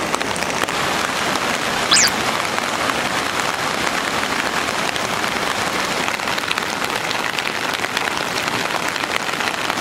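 Fast mountain river rushing over rocks, a steady wash of water noise. A brief high chirp sounds once about two seconds in.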